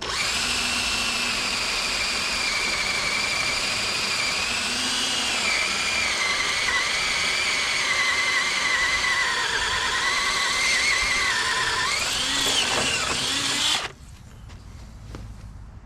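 Power drill running steadily under load for about 14 seconds, its motor whine sagging slowly in pitch as it bears down, rising briefly near the end, then cutting off.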